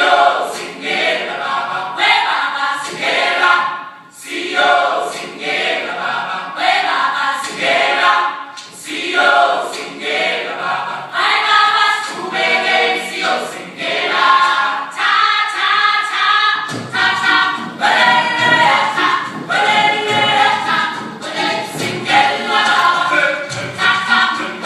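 A choir singing together in a gospel style, with sharp hits keeping a steady beat underneath.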